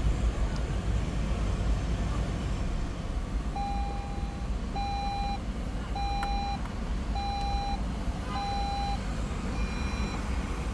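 A Toyota Land Cruiser 300's electronic warning chime beeps over the low rumble of the running vehicle. The beeps start about three and a half seconds in and repeat evenly, about six times, roughly one every 1.2 seconds.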